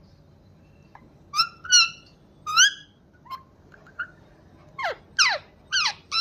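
Pet parrot calling: three short rising squawks in the first half, then a quick run of sharp downward-sweeping calls about five seconds in.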